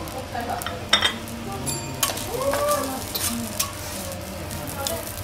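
Metal spatula and fork scraping and clicking on a steel teppan griddle while fried rice sizzles; several sharp metal-on-metal clicks.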